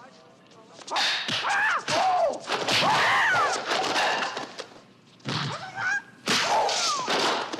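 Martial-arts film fight sounds: swishing strikes and punch and kick impacts mixed with sharp shrill yells, in four loud flurries with short pauses between them.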